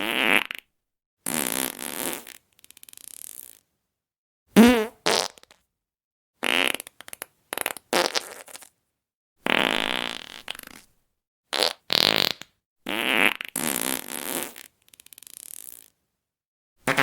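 A string of separate fart sound effects, a dozen or so short blasts with dead silence between them. The loudest comes about four and a half seconds in and is brief, with a wobbling pitch.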